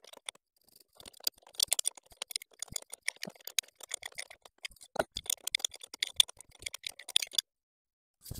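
Rapid, irregular metallic clicking and rattling of a wrench working a hydraulic pump fitting loose on a tractor engine, starting about a second in and stopping shortly before the end.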